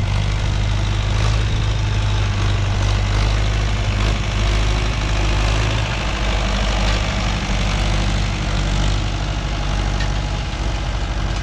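Tractor engine running steadily at a constant pitch, with a steady low hum and noise that stays even throughout.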